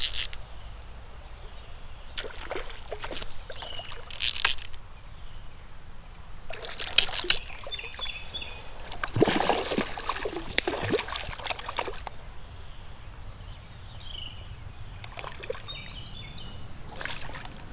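Creek water splashing and sloshing in short bursts, several times, as a hooked rainbow trout thrashes at the surface while being played on a fly rod.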